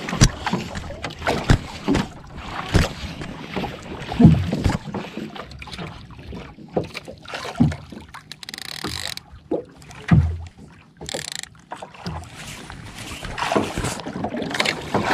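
Water slapping and sloshing against a small outrigger boat's hull, with irregular knocks and handling noise as a conventional jigging reel is worked, and wind buffeting the microphone. Two deep thumps stand out, about four and ten seconds in.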